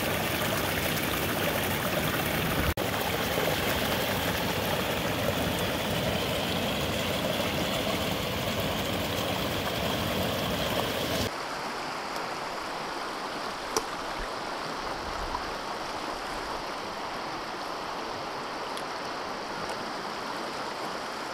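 Water of a small mountain creek rushing and splashing over rocks in a steady rush. About eleven seconds in it cuts to a quieter, softer flow, with one sharp tick a couple of seconds later.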